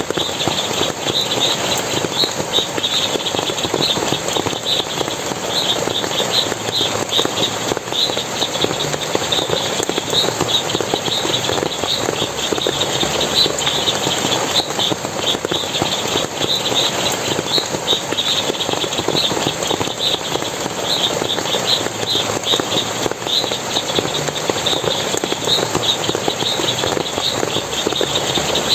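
Forest stream splashing and rushing steadily, with a continuous run of short, high chirps over it, two or three a second.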